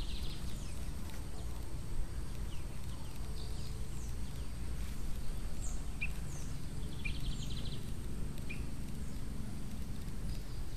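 Outdoor morning ambience of birds calling: scattered short chirps and a couple of brief rapid trills, over a steady low background rumble.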